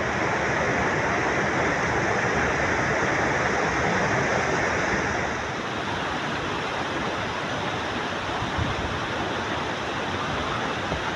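Steady rushing of flowing water, a little louder for the first five seconds or so.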